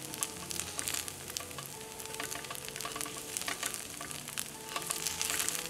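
Fried rice sizzling on a hot griddle pan as wooden spatulas stir and scrape it, with many quick clicks of the spatulas against the pan.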